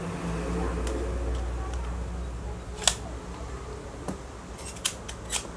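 Toy Beretta pellet pistol being handled and cocked: a string of sharp plastic-and-metal clicks as the slide is worked, the loudest about three seconds in and a quick cluster near the end, over a steady low hum.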